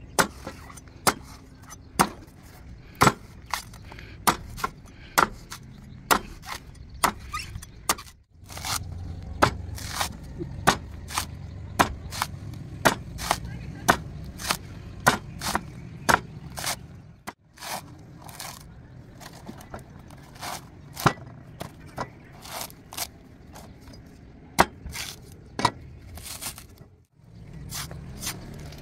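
Knife chopping and shaving the husk of a young coconut: a run of sharp, separate strikes, about one or two a second.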